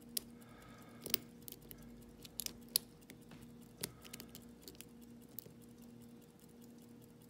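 Lock pick clicking and scraping against the pins inside an Albert Lebel challenge lock cylinder, held under a tension wrench while the pin stacks are tested one by one. Faint irregular metallic clicks, spaced from a fraction of a second to over a second apart, over a faint steady hum.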